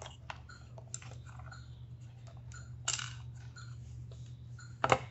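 Light plastic clicks and rattles as a circuit board is handled and lifted out of a syringe pump's plastic housing, with sharper clicks about three seconds in and near the end, over a steady low hum.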